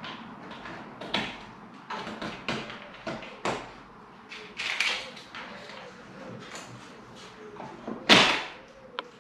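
Irregular knocks, taps and clatter of parts being handled in a UPVC window frame, with one louder bang about eight seconds in and a sharp click just after it.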